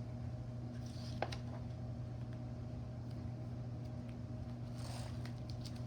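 Steady low hum of background room noise, with a faint click about a second in and a brief rustle near the end.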